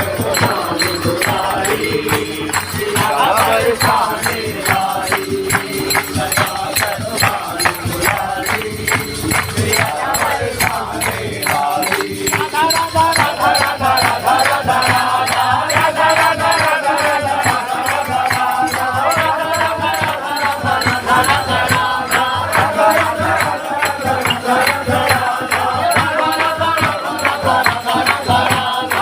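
Dhol drumming with a shehnai playing a wavering, continuous melody over it.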